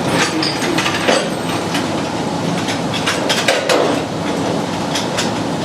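Metal knocks and clanks with brief squeaks of sheet-steel body parts rubbing as a car's front clip is shifted into fit on the unibody, over a steady background noise.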